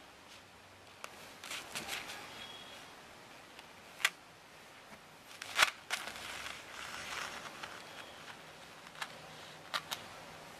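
Handling noise from fingers working a gold ball chain along a glue line on paper: a handful of sharp clicks and taps, the loudest just past halfway, with soft paper rustling between them.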